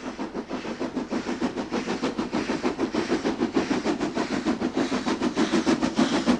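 Steam locomotive working under power, its exhaust beats coming in a fast, even rhythm of about five a second and growing louder as it draws nearer.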